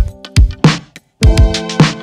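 Background music: a beat of drum hits over sustained chords, which cuts out for a moment about halfway through and then comes back.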